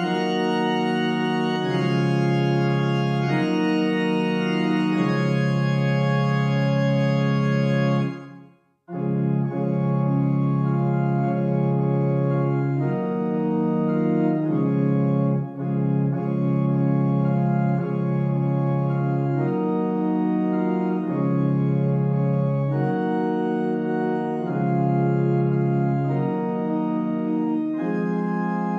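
Virtual pipe organ (GrandOrgue) playing slow, sustained chords of a hymn, with no pedal bass. The music stops completely for about a second just after 8 s, then carries on, with another brief dip near the middle.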